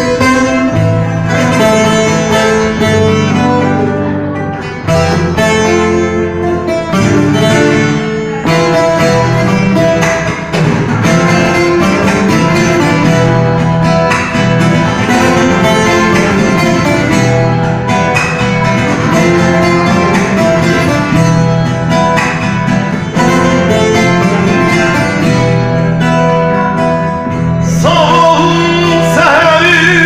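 Bağlama (long-necked Turkish saz) played with a plectrum, picking a Turkish folk türkü melody. Near the end a man's singing voice comes in over it.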